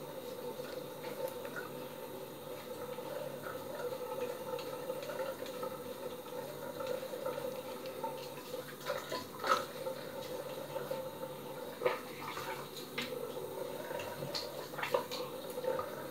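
Water running steadily from a tap into a sink, with a few light knocks about halfway through and near the end.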